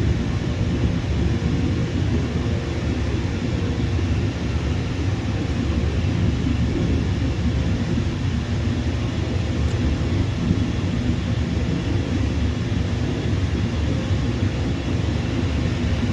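Jet airliner engines: a steady low rumble that holds level without rising or fading.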